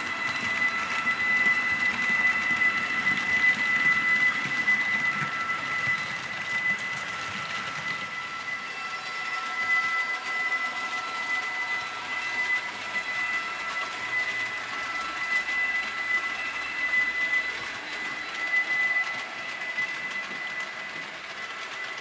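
H0-scale model freight train rolling past on the layout's track: a continuous light rumble and clatter of wagon wheels over rails and joints, with a steady high whine throughout.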